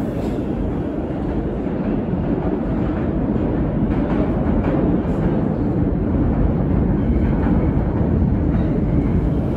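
New York City subway train approaching through the tunnel: a steady, echoing rumble of wheels on rail that grows gradually louder.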